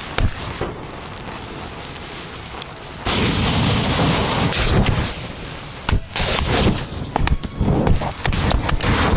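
Fire crackling through a tower of matches and disposable butane lighters. About three seconds in, a sudden loud rushing burst starts as a lighter bursts in the flames. Sharp pops and more rushing bursts follow as further lighters go.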